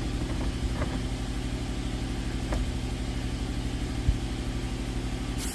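An engine idling steadily with an even low pulse, with a few faint knocks over it. It cuts off suddenly near the end.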